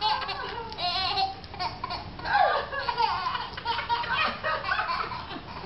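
Laughter in repeated bursts, a young child's laughing among it.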